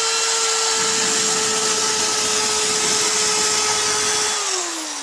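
Cordless drill with a diamond-coated tube (core) bit running at a steady speed against tape-covered glass, a held motor whine with a grinding hiss. About four seconds in the trigger is released and the motor winds down, its pitch falling.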